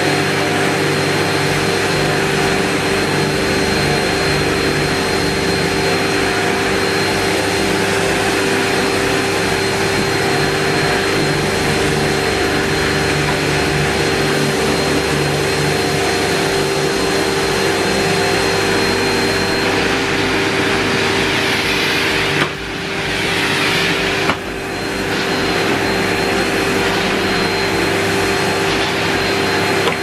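Vacuum cleaner motors running steadily while an upright vacuum is pushed back and forth over carpet. The drone dips sharply twice, about three-quarters of the way through, and picks back up each time.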